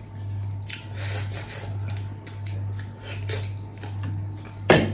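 Eating at a meal of rice and pickled buffalo trotters: soft chewing and small clicks of food and tableware, with one sharp knock a little before the end, over a steady low hum.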